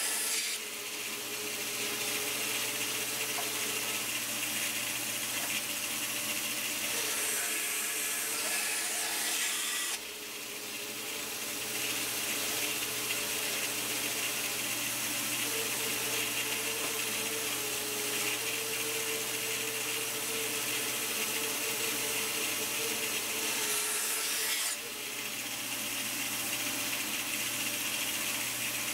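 Bandsaw running steadily with a low hum while its blade slices thin pieces off small pine drawer blanks. The cutting noise gets louder and brighter for a few seconds at a time, twice.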